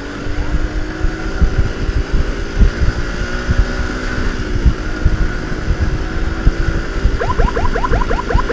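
Motorcycle on the move, its engine and wind on the microphone making a steady rumble with gusts. Near the end a siren starts a rapid yelp of about six short rising chirps a second.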